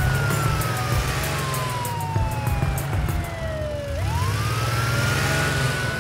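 Police siren sound effect for a cartoon police car, wailing: one tone falls slowly for about four seconds, sweeps quickly back up and holds high again, over a steady low rumble.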